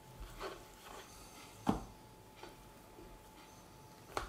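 A few short knocks of a knife and meat on a wooden chopping board as pork belly is cut into small chunks, the loudest just under two seconds in, with quiet in between.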